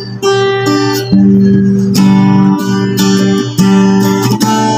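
Acoustic guitar strumming chords, a new chord struck about once a second and left to ring.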